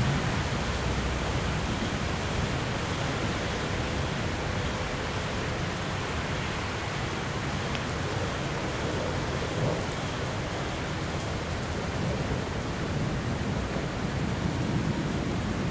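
Steady rain falling on a wet platform and railway tracks, an even hiss throughout. A low rumble runs underneath and grows stronger near the end.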